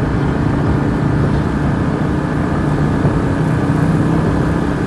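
Large bus engine running steadily with a continuous low rumble; no horn is sounding.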